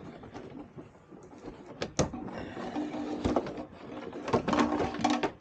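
Hands working plastic fender trim, clips and wiring loose: a few sharp plastic clicks and snaps, about two seconds in, again a second later, and in a quick cluster near the end, over scraping and rustling.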